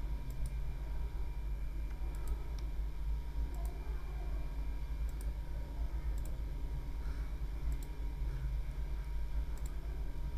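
Computer mouse clicking about nine times at irregular intervals, several clicks in quick press-and-release pairs, as points of a Bezier curve are placed one by one; a steady low electrical hum runs underneath.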